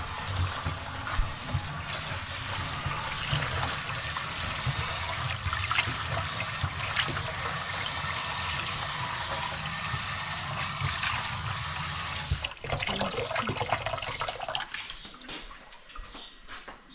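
Tap water pouring steadily into a large aluminium pan while a hand swishes the water around inside. The steady pouring stops about twelve seconds in, leaving a few seconds of uneven splashing before it quietens.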